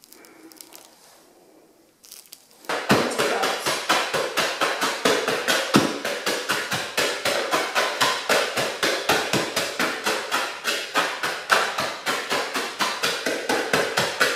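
The end of a rolling pin pounding coconut cookies in a bowl, crushing them to crumbs: a rapid, even run of sharp thuds, about four a second, starting about three seconds in.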